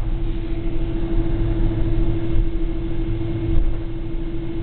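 Cabin noise inside a Boeing 777 rolling on the ground after landing: a steady low rumble with a constant droning tone.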